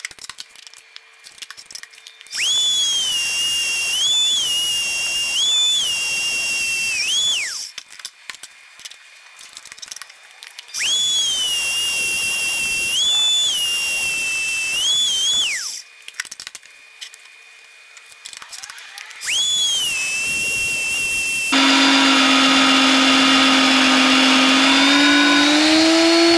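Vevor BRM-35 magnetic drill press running a twist drill bit through half-inch hot-rolled steel plate. There are three separate drilling runs of about five, five and two seconds; the motor's high whine sags in pitch each time the bit bites. Near the end comes a louder, steadier run whose pitch begins to fall right at the end.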